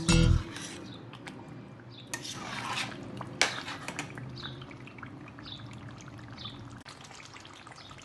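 Metal spoon stirring thick tomato stew in a metal cooking pot, with wet liquid sounds, a scrape a little after two seconds in and a sharp clink of the spoon against the pot about three and a half seconds in.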